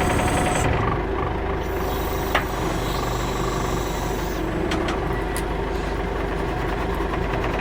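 Tractor backhoe's engine running steadily as the bucket is worked, with a few light knocks about two and a half and five seconds in.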